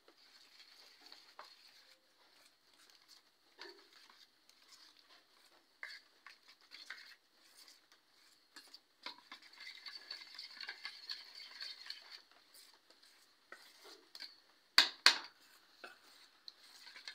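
A metal spoon stirring a thick rice-flour and mashed-eggplant batter in a steel bowl, with small wet clicks and scrapes. Near the end come two sharp clinks a fraction of a second apart.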